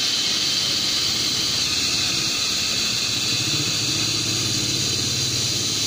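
Hot-air plastic welding gun blowing a steady hiss of hot air as a polypropylene welding rod is melted into a tank seam, with a low motor hum underneath that grows a little stronger midway.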